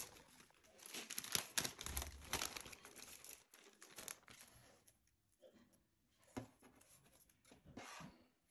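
Faint crinkling and rustling of a plastic zip-lock bag being handled, densest in the first few seconds. Then a few soft rustles and taps as cut-paper puzzle pieces are laid out on a wooden desk.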